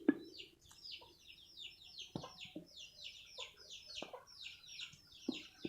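Chicks peeping in the background: a steady run of short, high, falling peeps, about four or five a second. A few light clicks, the first just after the start.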